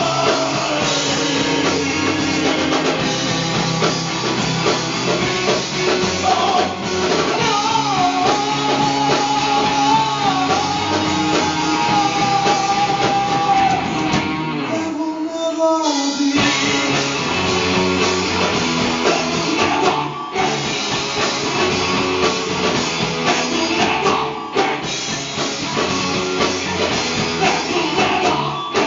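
Rock band playing live: electric guitars over a drum kit, with a long held, bending lead note in the middle. The low end drops out for about a second and a half just past halfway before the band comes back in.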